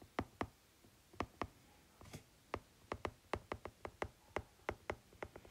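A stylus tip tapping on a tablet's glass screen during handwriting: an irregular run of about twenty light, sharp clicks, bunched with short gaps between strokes.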